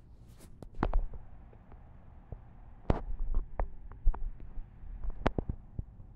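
Handling noise from a handheld camera: irregular low thumps and a few sharp clicks, the loudest about a second in, then a cluster around three to five seconds in.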